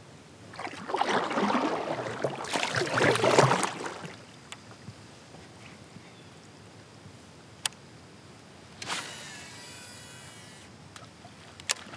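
Kayak paddle strokes splashing through the water for about three seconds. Near the end comes a cast: a baitcasting reel whirs with a thin whine for under two seconds as line pays out, with a few sharp clicks.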